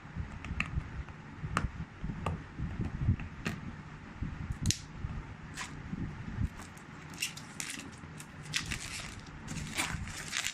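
Handling sounds from a smartphone's retail box being opened: scattered clicks, crackles and rustles as the box's seal is peeled off and the cardboard lid worked free, over a faint low hum.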